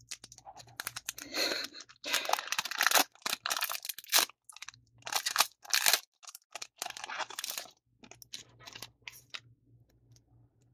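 Foil wrapper of a trading-card booster pack crinkling and tearing as it is opened by hand, in several bursts of rustling, followed by quieter handling of the cards near the end.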